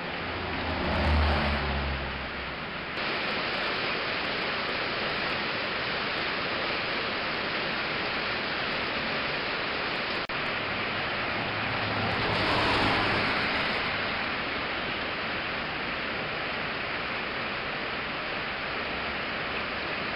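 Steady hiss of rain, with a motor vehicle passing twice, swelling and fading about a second in and again about twelve seconds in.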